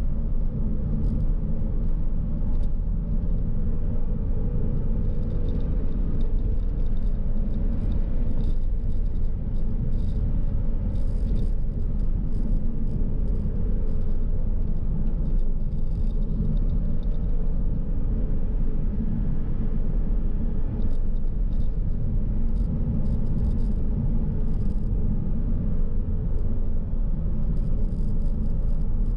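Porsche Cayman R's flat-six and tyres running steadily at a light cruise of about 45 mph, a constant low rumble heard from inside the cabin, with faint intermittent light ticks or rattles.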